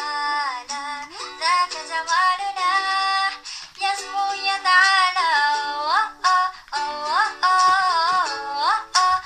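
A female voice singing a melody over backing music, with held notes and smooth slides between pitches.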